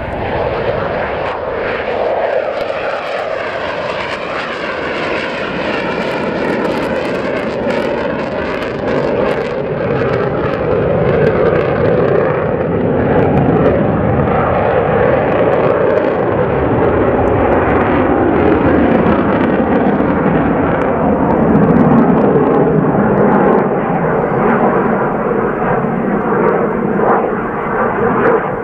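USAF F-15 fighter jet's twin turbofan engines, loud and sustained as it flies past and climbs away. A jet roar with a sweeping, phasing sound through the first several seconds, building to its loudest a little past halfway and easing near the end.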